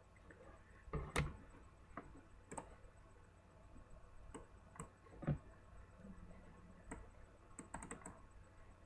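Faint, scattered keystrokes and clicks on a computer keyboard: single taps and short quick runs with pauses between.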